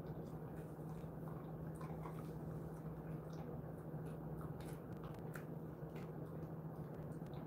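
A dog chewing and licking at a dried chicken-and-pollack treat stick: faint, irregular wet clicks and smacks, over a steady low hum.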